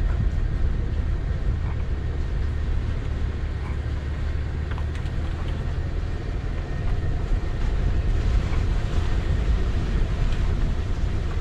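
Audi A6 C5 2.8 quattro driving over a snowy dirt track, heard from a camera on its bonnet: a steady low rumble of the 2.8-litre V6 and the tyres.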